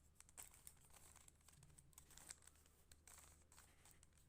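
Faint, irregular plastic clicks and rattles of a puzzle cube's pieces as its layers are twisted by hand.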